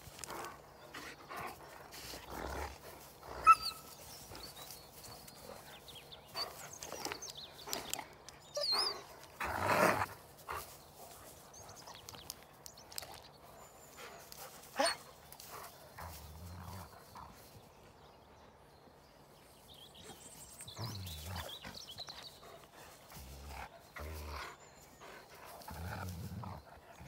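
Two large dogs play-fighting: scattered short growls, yelps and whines, mixed with scuffling in the grass. The loudest flurry comes about ten seconds in, with a quieter lull past the middle.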